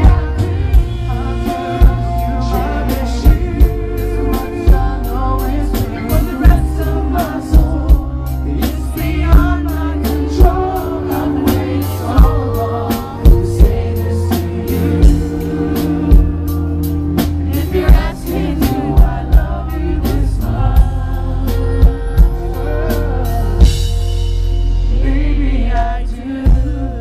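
Live band playing a slow pop ballad, with a steady drum-kit beat and sustained bass under sung vocals.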